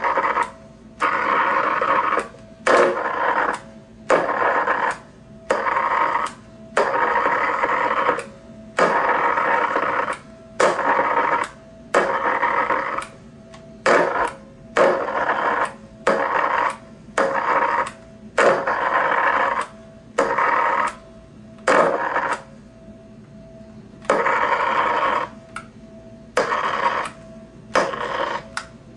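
A microwave oven transformer's high-voltage circuit switched on and off by hand about twenty times, each on-pulse a loud electrical buzz of arcing across a spark gap and a spark plug in water, with a click as it starts and stops. The buzzes are uneven, from a fraction of a second to about a second and a half, with a longer pause about three quarters of the way through.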